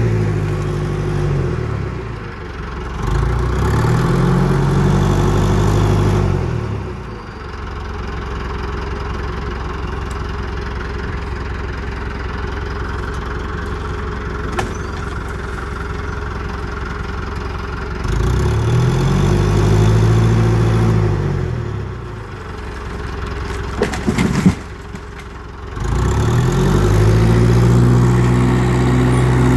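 Old International Harvester crawler loader's engine working under load, revving up and falling back three times with a lower, steadier running between. A couple of sharp cracks come about three quarters of the way through.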